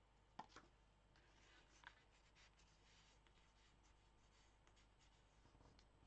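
Faint handling of cardstock: a paper tag being slid into a paper pocket of a handmade folio, with a few light taps in the first two seconds, then soft sliding and rustling.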